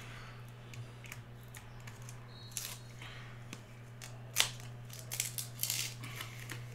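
Trading-card packaging being torn and peeled open by hand: a few short crinkling, tearing crackles, loudest about four and a half seconds in and in a quick cluster a second later, over a steady low hum.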